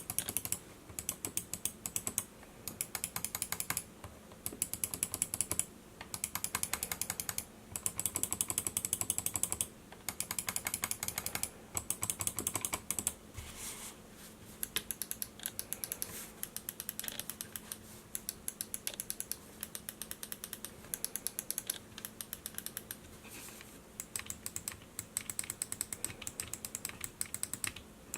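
Logitech G900 gaming mouse buttons clicked rapidly, in strings of quick, crisp clicks about a second long with short pauses between them.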